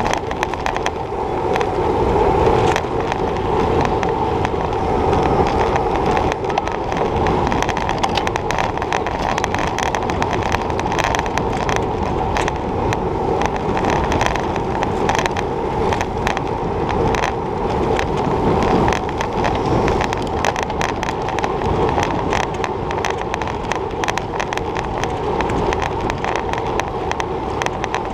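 Road bike rolling at race speed over rough asphalt, heard through an action camera mounted on the bike: a steady rush of wind and tyre noise with constant rattling jolts from road vibration.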